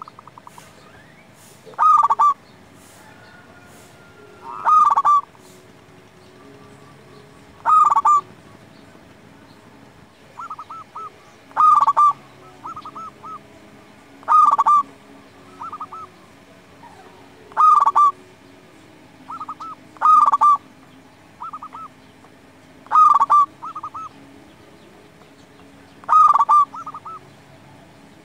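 Zebra dove (perkutut) singing: about nine loud trilled cooing phrases, roughly one every three seconds, with fainter, shorter trilling calls in the gaps.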